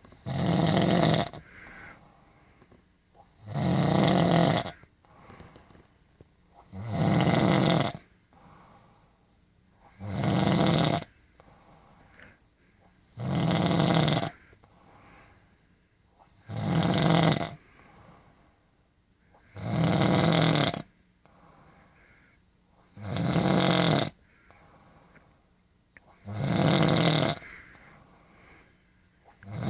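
A woman snoring, one loud snore about every three seconds, each lasting about a second, about ten in a steady rhythm.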